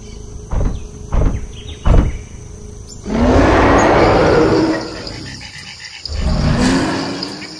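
Dinosaur sound effect: three heavy footstep thuds a little over half a second apart, then a long roar about three seconds in and a second, shorter roar about six seconds in, over a steady high insect chirring.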